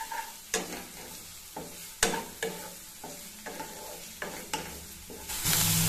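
Spatula stirring chopped onion, capsicum, carrot and chilli frying in a little oil in a non-stick pan: a light sizzle broken by a scrape of the spatula against the pan about every half second. The sound grows louder near the end.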